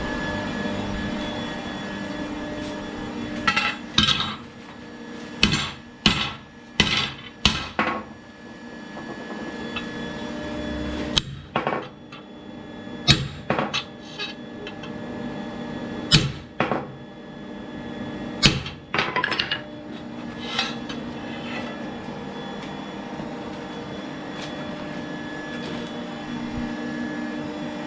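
Sharp ringing metal-on-metal hammer blows, about fifteen strikes in irregular groups through the first two-thirds, over a steady machine hum.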